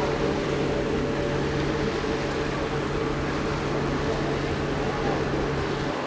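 Steady drone of a ferry's engines under way: a constant low hum with a higher hum above it, over an even rush of noise.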